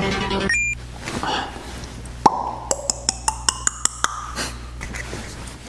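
Music: a held tone, a short bright ping, then a steady beat of sharp clicks starting about two seconds in.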